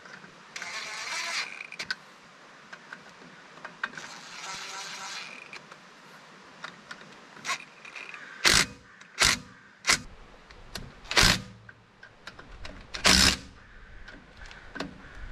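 Small cordless drill-driver spinning hub nuts down onto their studs in short runs. Two longer whirs of about a second come near the start, then about five short, louder bursts in the second half as the nuts are run down.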